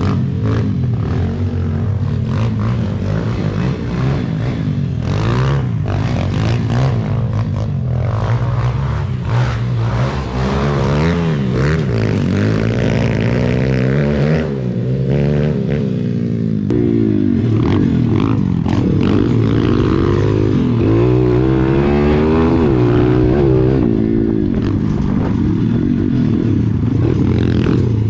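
Small four-stroke pit bike engine ridden hard, revving up and dropping back over and over as the throttle is worked, with some rattling and clattering mixed in.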